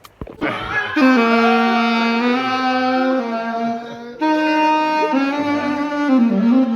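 Saxophone playing a slow melody of long held notes, starting about a second in, with a brief break about four seconds in.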